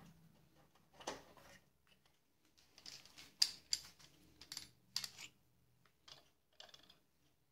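Light clicks and knocks of a miter saw's hold-down clamp and a homemade extension bracket being handled and fitted onto the saw's fence, a scattered series with the loudest about three and a half seconds in.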